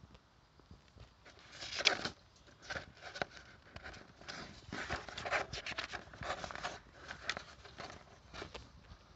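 Paper pages of an instruction booklet being turned and handled: irregular rustling and crinkling, starting about a second and a half in and dying away near the end.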